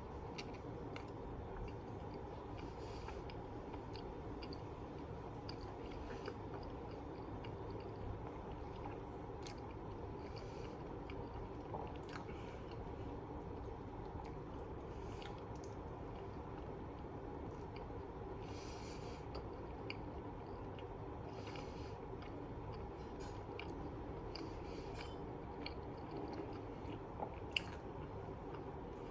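A person chewing pizza close to the microphone, with scattered small wet clicks from the mouth, over a steady low background hum.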